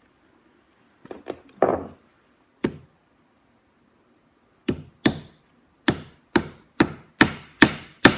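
Plastic mallet tapping a decorative upholstery tack into leather: a few scattered light knocks, then from about five seconds in a steady series of sharp taps, about two a second.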